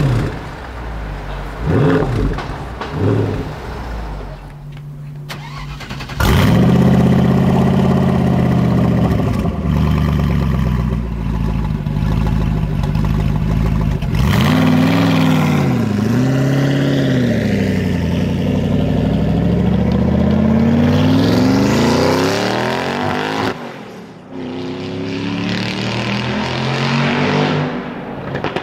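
Supercar engines in turn: a Mercedes-Benz SL65 AMG's twin-turbo V12 blipped three times. A Gumpert Apollo's twin-turbo V8 starts up about six seconds in and settles to a steady run, followed by a series of rising and falling revs. Near the end a different engine runs more quietly.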